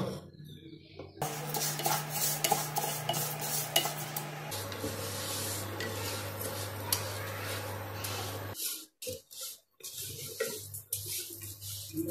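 Dry black urad dal being stirred with a wooden spatula in a nonstick pan: a dense, continuous rattle and rasp of the lentils scraping across the pan. It breaks off briefly about nine seconds in, then comes back as sparser scrapes. A steady low hum runs beneath the stirring.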